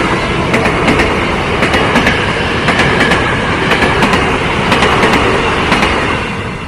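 A train passing close by, its wheels clattering over the rail joints in a loud, steady rush of noise with sharp clicks. The last of its horn dies away right at the start, and the rush eases off near the end.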